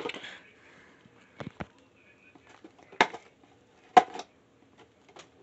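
Handling noise: a few sharp taps and knocks, the loudest about three and four seconds in, as a cardboard toothpaste box is handled and set down on a bathroom sink counter.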